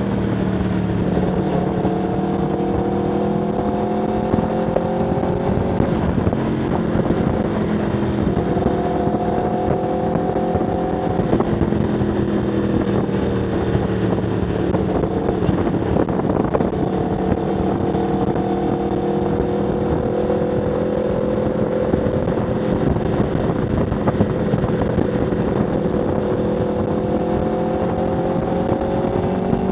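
Aprilia Tuono V4 1100 Factory's V4 engine running at steady mid revs while cruising, its pitch drifting gently up and down. Near the end the revs climb as the bike accelerates.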